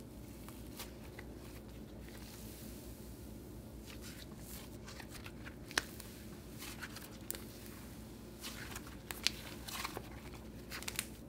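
Cloud slime being squished and stretched apart by hand, giving soft crackles and a few small sharp pops. The pops are sharpest about six seconds in and just after nine, with a cluster of crackles near the end.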